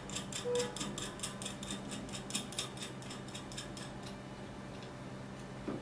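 Quick run of small metallic clicks, about four a second, as a sight pin is turned and tightened by hand in a bow's arrow sight; the clicks thin out after about three seconds.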